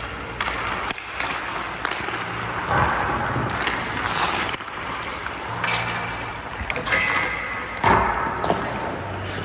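Ice hockey goalie's skate blades and leg pads scraping and sliding across the ice in a few pushes, with sharp clicks of equipment and stick on the ice.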